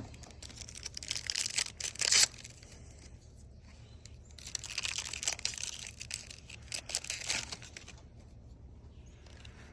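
A trading-card pack wrapper being torn open and crinkled. There are two spells of ripping and rustling, with the sharpest tear about two seconds in.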